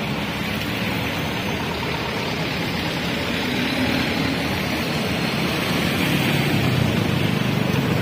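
Road traffic of trucks and motorcycles driving slowly past, engines running steadily; a little louder near the end as motorcycles pass close.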